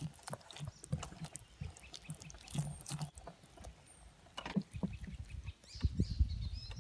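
Wire whisk clicking and scraping against a glass bowl, beating a thick, sticky paste of honey, oil and jujube flour. A low rumble comes in about six seconds in.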